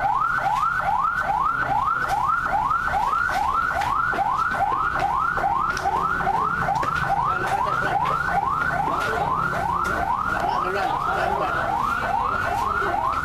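Emergency vehicle siren in a fast repeating yelp: nearly three rising sweeps a second, each climbing then dropping back abruptly, with a low steady hum beneath.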